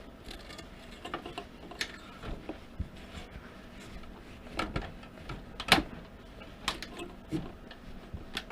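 Irregular clicks and light knocks of hand tools and metal parts being handled during installation work, the sharpest knock about six seconds in.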